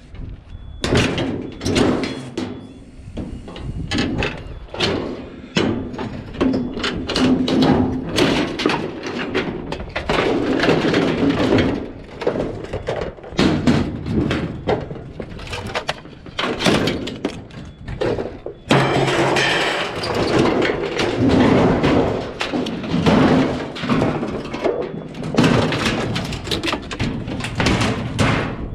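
Many irregular knocks, thumps and clatters of objects being handled and set down, with a few louder bangs.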